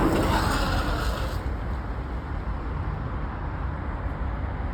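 VAZ 2106 car running, a steady low rumble with road and engine noise. A louder rushing noise fades out in the first second or so.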